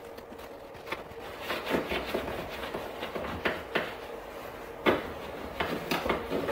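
Cloth rag wiped with alcohol across the truck's painted cab roof around the brake-light opening, in a series of short, irregular rubbing strokes. A faint steady hum runs underneath.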